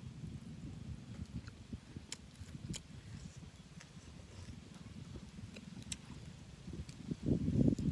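A person chewing a mouthful of grilled meat close to the microphone, an irregular soft mouth sound with a few sharp clicks; the chewing gets louder near the end.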